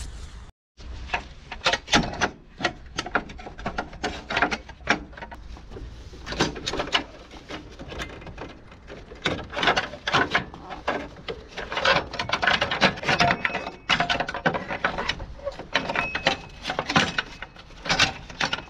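Hand-tool and parts-handling noise in a car engine bay: irregular clicks, knocks and scraping as the accessory-belt tensioner pulley is loosened and a small cover is worked free.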